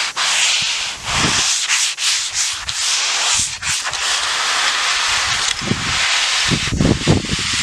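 Fine-grit sandpaper rubbed by hand along a painted wooden veranda rail, a steady hissing scrape in long back-and-forth strokes with brief pauses. This is the final light sanding that freshens the weathered paint before a new coat.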